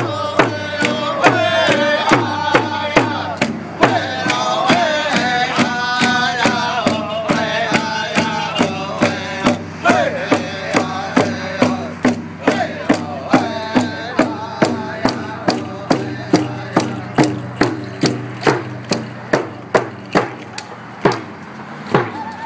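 Native American hand drums (frame drums struck with padded beaters) beating in unison at about two beats a second, with men singing a chant over them. The singing drops away near the end while the drumming goes on.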